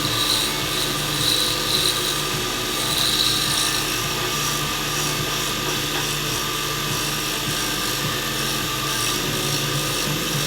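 Wood lathe running while a turning tool cuts a dyed, stabilized burl pen blank: a steady scraping over the motor's hum.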